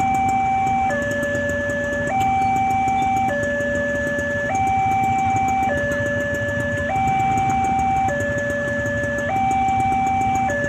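Newly fitted railway level-crossing siren sounding a two-tone hi-lo warning, switching between a higher and a lower tone about every second and a quarter, the signal that a train is approaching. A steady low hum runs underneath.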